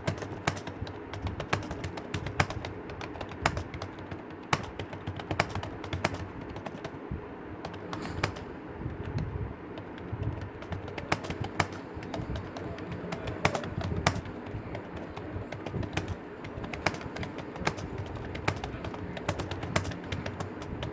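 Continuous typing on a computer keyboard: an irregular, rapid stream of key clicks, with some keystrokes standing out louder.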